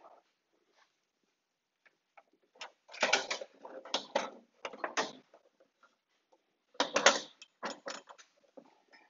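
Metal parts of a Shopsmith Mark V being handled and fitted: clanks, knocks and rattles of a hex wrench and the metal saw guard against the machine. They come in two bursts of quick knocks, one about three seconds in and one about seven seconds in.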